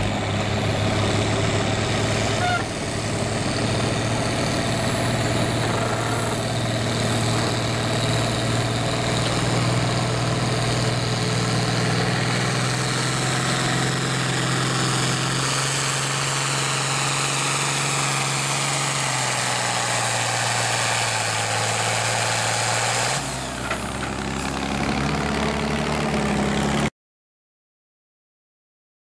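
International Harvester farm tractor's engine running hard under full load while pulling a weight-transfer sled. The engine note holds steady, then slowly sinks in pitch as the sled's load builds and drags the engine down. The tractor eases off a little past three-quarters of the way through, and the sound cuts out near the end.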